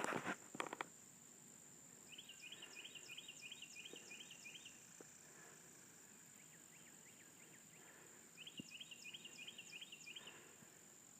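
A bird calling in two runs of quick, evenly repeated high chirps, over a steady high-pitched insect drone; a brief rustle of footsteps at the very start.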